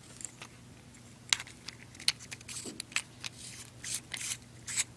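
AAA batteries being loaded into a cheap laser pointer's metal tube and the pointer handled and put back together: a string of sharp clicks and short scrapes, the sharpest about a second in.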